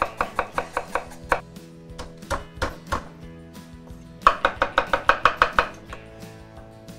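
Chef's knife rapidly chopping fresh ginger on a wooden cutting board: a quick run of about six strokes a second at the start, a few slower cuts, then a second quick run about four seconds in. Background music plays underneath.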